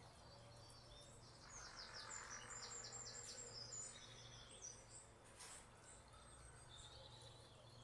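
Birds singing faintly, with runs of quick high chirps in the first half, over a faint low steady hum.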